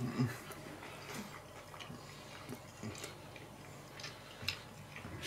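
Faint mouth sounds of a man chewing a bite of steak sandwich: a few soft, scattered clicks and smacks.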